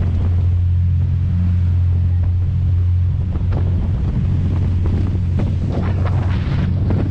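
Steady low drone of a large powered catamaran ferry's engines under way at speed, with the rush of its churning wake and wind buffeting the microphone, the gusts and splashes coming more often in the last couple of seconds.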